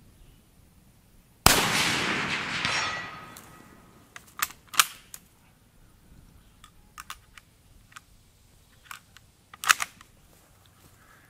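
An 1886 Lebel rifle fires a single shot about a second and a half in, and the report echoes away over a couple of seconds. Then the bolt is worked by hand for the next round, making a string of sharp metallic clicks and clacks, with a loud clack near the end.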